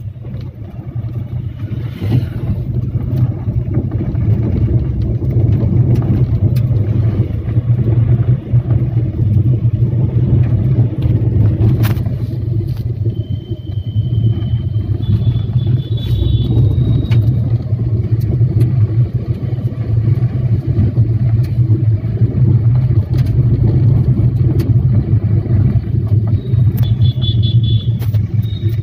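Motorcycle riding along a rough dirt track: a steady low rumble of engine and wind, with scattered light knocks from bumps.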